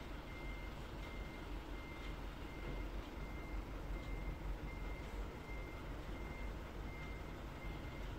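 A short high electronic beep repeating evenly about twice a second over a steady low rumble.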